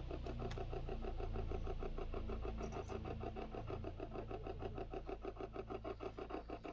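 Spirit box (ghost box) radio sweeping rapidly through stations: a fast, even chopping of static and broken radio fragments, about eight pulses a second, with shifting low tones underneath.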